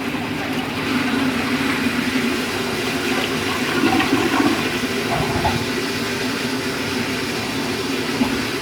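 Toilet refilling after a flush: water running steadily through the Briggs Conserver tank's fill valve into the tank and down into the wall-hung bowl.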